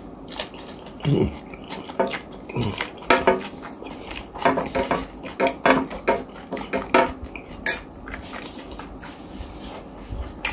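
Spoon scraping and clinking against a plate while scooping up rice, a quick run of scrapes and taps that stops about eight seconds in.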